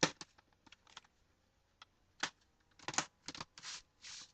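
Plastic screen bezel of a Toshiba Satellite laptop being pressed back onto the lid, its clips snapping into place in an irregular series of sharp clicks and pops.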